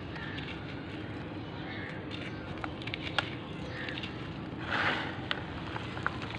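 Dry gritty charcoal lumps crushed and crumbled between the fingers: crunching with small sharp crackles as the grit falls onto a bed of crumbs. About five seconds in comes a louder rush as a handful of grit is poured out. A steady low background hiss runs underneath.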